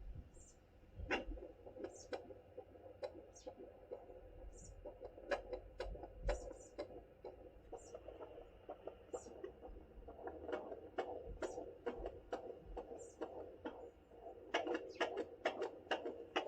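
Home fetal doppler's speaker crackling and whooshing as the probe is slid over a pregnant belly in search of the baby's heartbeat. Near the end a quick, steady pulsing comes through.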